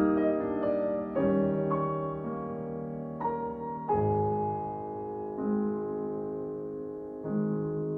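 Slow, soft piano music: a new chord or note struck every second or two, each left to ring and fade.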